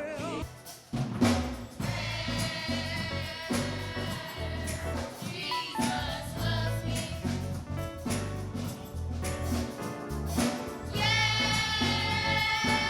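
Gospel music with choir singing over a drum kit, the voices holding long notes that swell near the end.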